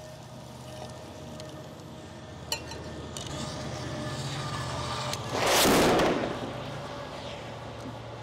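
A steady low hum under outdoor handling noise, with a single sharp click about two and a half seconds in and a brief, loud rushing hiss a little past halfway.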